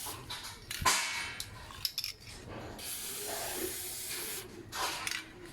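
Aerosol can of chain lube spraying onto a chain in several short hissing bursts.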